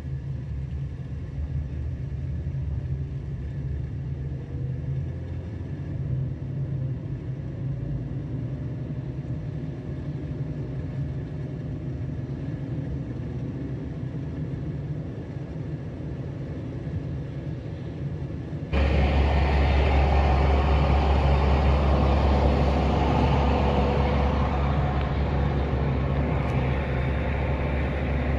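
Steady low outdoor rumble, which jumps suddenly to a louder, harsher rumble about two-thirds of the way through.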